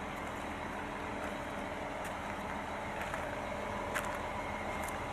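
Concrete pump truck's engine running steadily at idle, with a few faint clicks, the clearest about four seconds in.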